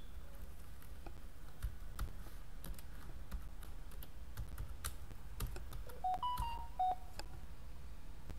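Computer keyboard keystrokes, a scattered series of sharp clicks as a search query is typed, over a low steady hum. About six seconds in comes a brief run of short electronic beeps at stepping pitches.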